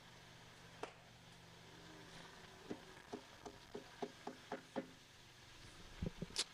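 Faint room tone with a steady low hum and a run of soft taps, about two or three a second, through the middle.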